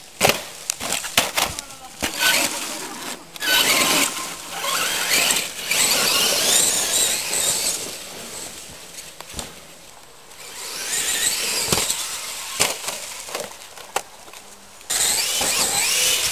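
Electric radio-controlled monster trucks driven hard over dirt jumps: a high-pitched brushless motor whine that swells and fades several times as they speed up and back off, with sharp knocks from landings and tyres hitting the ground.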